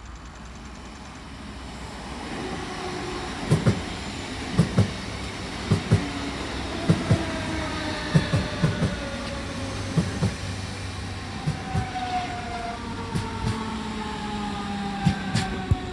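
Electric multiple unit, a DB class 425, arriving and braking. Its traction equipment whines in several tones that fall steadily in pitch as it slows, and the wheels knock in pairs over rail joints about once a second.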